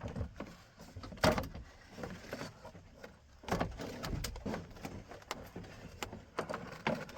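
Scattered knocks, clicks and rustling of a truck's plastic interior door panel and its wiring being worked into place on the door, with one sharp knock about a second in.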